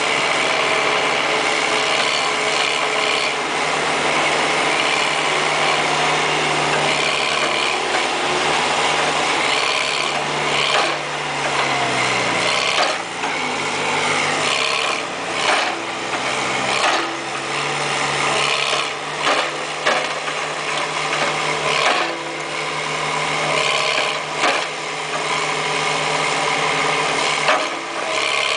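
Backhoe engine running steadily, its pitch dropping for a few seconds about a third of the way through and then climbing back. Short knocks and clanks come often in the second half.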